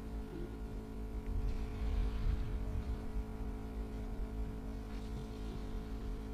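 A motor running steadily, with a strong low rumble and an unchanging hum.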